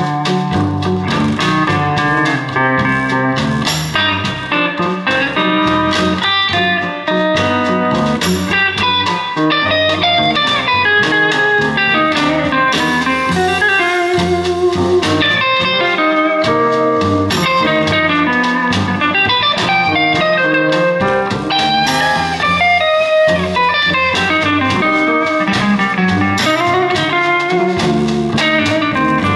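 Blues guitar music with no singing, played back through a home-built 8-inch full-range neodymium driver with a paper cone and no surround, mounted in a cardboard paper-box enclosure.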